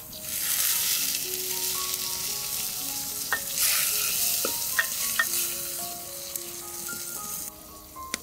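Red liquid poured into hot fried onions and paste in a glazed ceramic pot sizzles loudly, surging again about halfway. A wooden spoon stirs it, knocking against the pot a few times, and the sizzle drops off near the end.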